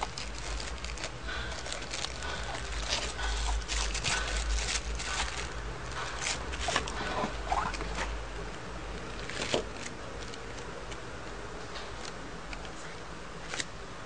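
Hands handling a stiff white card: irregular rustles, scrapes and small clicks, busiest in the first half, over a steady low hum.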